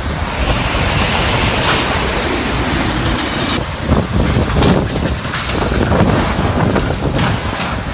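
Typhoon gale blowing hard in gusts and buffeting the microphone, with a few knocks and rattles in the middle and near the end.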